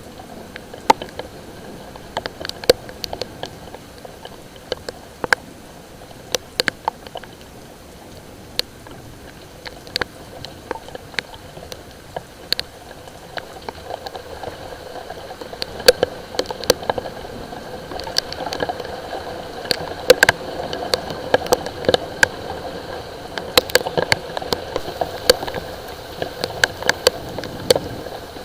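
Light rain with irregular sharp drips and raindrop taps on a hard surface close by, coming more densely in the second half.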